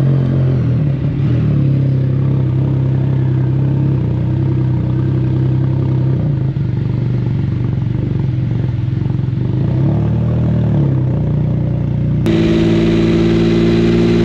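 Can-Am Spyder motorcycle engine, a Rotax 1330 inline three-cylinder, running at a steady cruise with a steady drone. About twelve seconds in, the sound cuts abruptly to a higher-pitched engine note.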